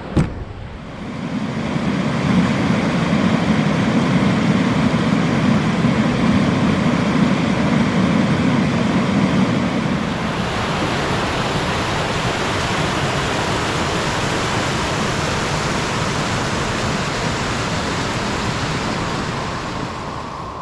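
Rapids rushing over rocks, a loud steady rush of water. It is deeper and fuller for the first half, then changes about halfway to a brighter, slightly quieter rush. A sharp click sounds right at the start.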